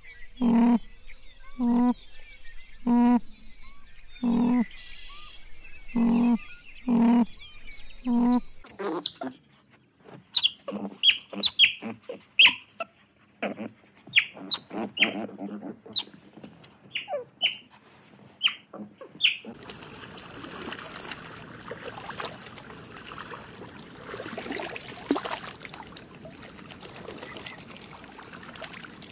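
Animal calls in three parts: about eight low pitched calls a second or so apart, then quick high bird chirps and whistles, then a rougher noisy stretch with scattered faint calls.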